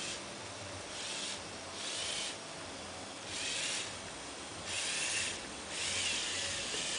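LEGO Technic eight-wheeled trial truck's electric drive motors and gearing whirring in short raspy bursts, about five in a row, each around half a second, as it crawls over rocks.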